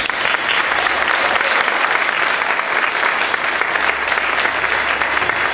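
Audience applauding, the clapping building quickly at the start and then holding steady.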